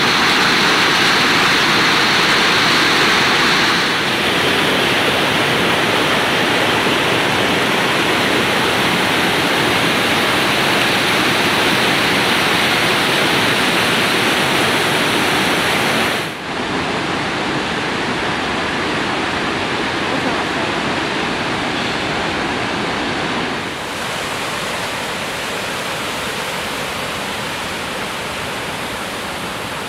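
Whitewater creek rushing and splashing over boulders in a steady roar of water. It changes abruptly three times, about four seconds in, midway and about three quarters of the way through, each time a little quieter.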